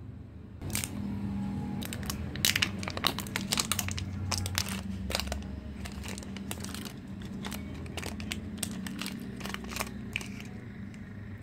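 Plastic shrink-sleeve label being peeled off a glass coffee bottle, crinkling with quick irregular crackles, loudest about two and a half seconds in.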